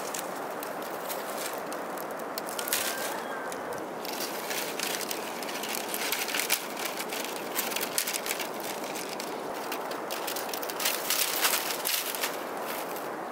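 Split bamboo strips clicking and rustling as they are worked into a woven basket, with many irregular sharp ticks over a steady background hiss.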